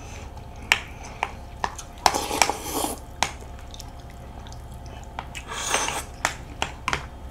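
A metal spoon clinking and scraping in an earthenware bowl of galbitang (beef short-rib soup), in scattered sharp clicks. Twice there is a longer slurp of broth and noodles, about two seconds in and again near the end.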